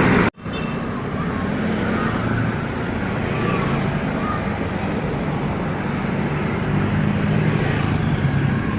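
Roadside traffic: passing vehicles' engines and tyres making a steady mixed noise, with a brief dropout near the start.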